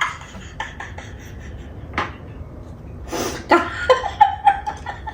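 Eating sounds from someone chewing food: small wet mouth clicks and smacks, with one sharper click about two seconds in. Near the end comes a breathy burst and a short hummed vocal sound.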